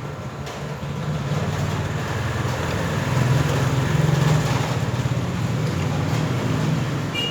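A motor vehicle's engine running with a steady low hum, swelling to its loudest about halfway through, then easing off.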